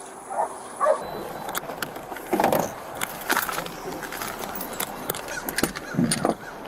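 Rustling and scattered sharp clicks of close-up handling noise, with two brief muffled voices.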